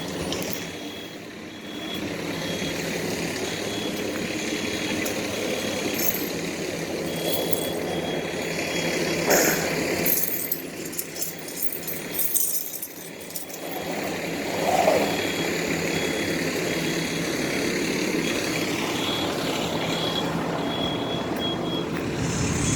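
Fire truck engine running steadily, with a short high-pitched electronic beep repeating at an even pace over it.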